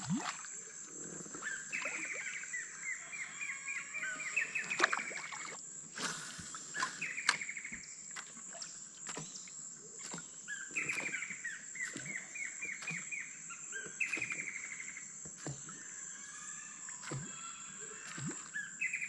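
Birds singing repeated phrases of quick notes that fall in pitch, over a steady high-pitched insect drone, with scattered faint clicks.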